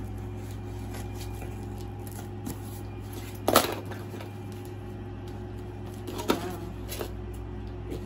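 Cardboard shipping box being handled as it is opened: light scrapes and knocks over a steady low hum, with one loud sharp noise about three and a half seconds in and a shorter one a little after six seconds.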